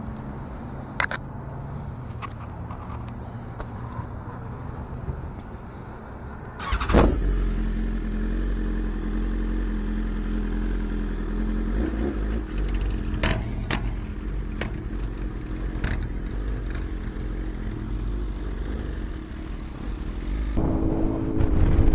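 A 2021 BMW S1000RR's inline-four engine starting about seven seconds in and then idling loudly through its exhaust, with a few sharp clicks; near the end it revs up as the bike pulls away. Before the start a quieter engine hums in the background.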